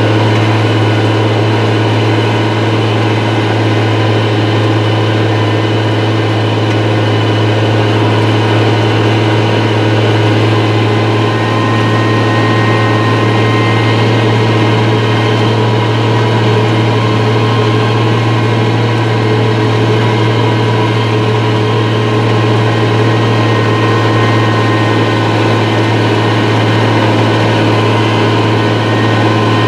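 IH 3788 2+2 tractor's six-cylinder turbo-diesel engine running steadily under load while pulling a chisel plow through the ground, a loud, even drone with a deep hum and no change in pitch.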